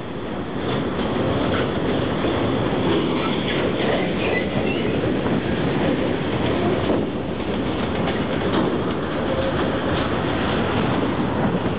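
Freight train's loaded container wagons rolling past, a steady rumble of steel wheels on rail with occasional clicks.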